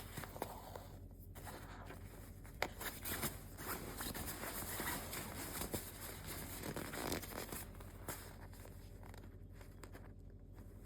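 Soft rustling and scratching of a quilted jacket's fabric being handled while it is stitched by hand, with thread drawn through it and a few small ticks.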